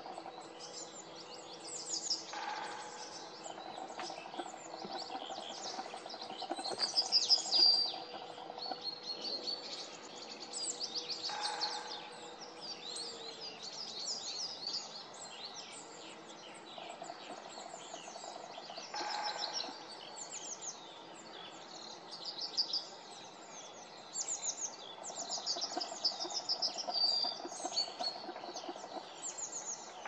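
Several small songbirds singing and chirping at once, quick high trills and twitters overlapping throughout, with a few louder calls standing out. A faint steady low hum runs underneath.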